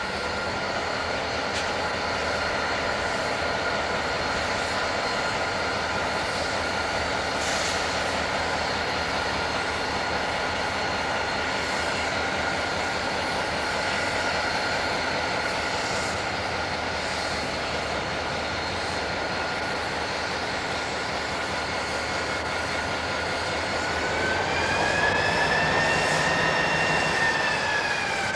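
EMD SD45T-2 diesel-electric locomotive's 20-cylinder turbocharged engine running, with a steady high whine over the engine. Near the end the whine rises in pitch and the engine gets louder for a few seconds, then drops back.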